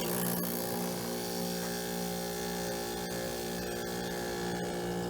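Vintage Superthrust window air conditioner running just after its compressor kicked on: a steady electric hum with a low drone under it.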